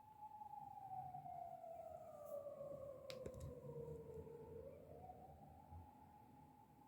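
A distant emergency-vehicle siren. It holds one pitch, then slides slowly down over about four seconds and climbs back up again. A few faint clicks come about three seconds in.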